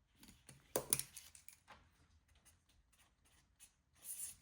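Light handling noises from paper cash envelopes and bills: small rustles and clicks, a louder snap about a second in and a short rustle near the end.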